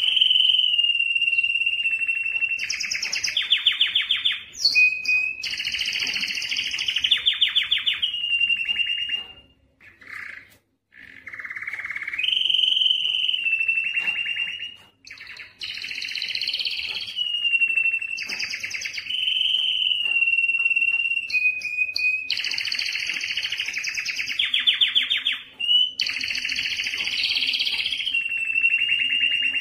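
Domestic canary singing a long song of fast rolling trills alternating with steady held whistles, with short breaks about ten and fifteen seconds in.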